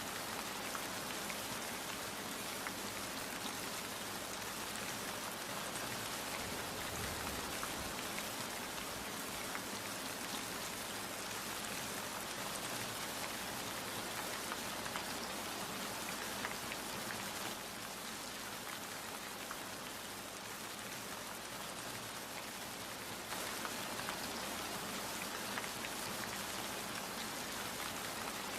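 Steady rain falling, with a fine patter of individual drops striking a surface. It eases slightly for a few seconds past the middle.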